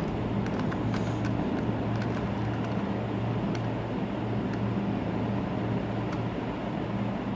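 A steady low hum with background noise, and now and then a faint click as the layers of a plastic 2x2 Rubik's cube are turned slowly by hand.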